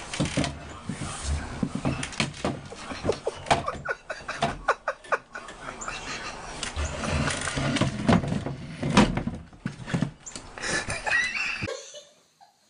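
Irregular knocks, clatter and rustling from a cat scrambling around a wooden chair and a box fan on a wooden floor. The sound cuts off suddenly about a second before the end.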